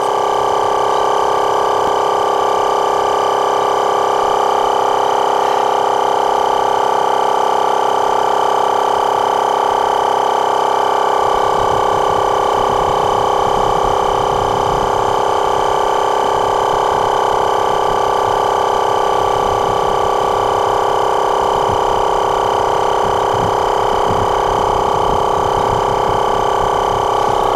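Audew dual-cylinder 12-volt portable air compressor running steadily, a constant machine hum, pumping up a car tire under load as the pressure climbs toward about 32 psi. A rougher low rumble joins the hum about eleven seconds in.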